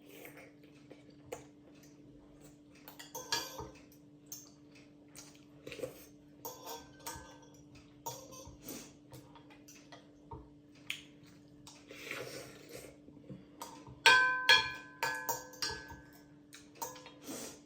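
Eating soup noodles from a bowl: scattered small clicks of a utensil against the bowl among short slurping and eating noises. About fourteen seconds in comes a run of loud, ringing clinks, the loudest sound here.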